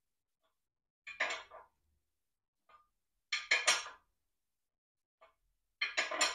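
Ratchet wrench clicking in three short bursts about two and a half seconds apart as its long handle is swung back between strokes. It is turning the forcing screw of a sleeve puller to draw a worn cylinder liner out of the engine block. A faint metallic tick falls between the bursts.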